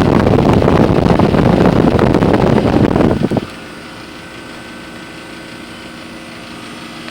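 Outdoor heat pump condensing unit running: a loud rush of fan air buffeting the microphone cuts off suddenly about three and a half seconds in, leaving a steadier, quieter machine hum with a few held tones.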